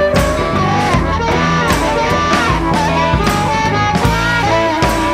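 Rock music with a steady drum beat and a lead melody over guitar.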